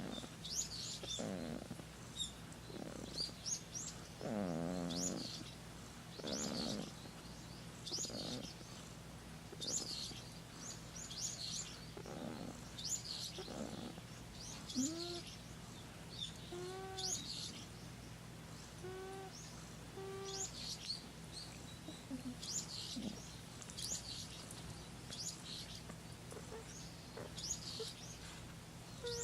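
A sleeping cat breathing with a soft snore on each breath, about every one and a half to two seconds, one breath rattling about four seconds in. Birds chirp throughout.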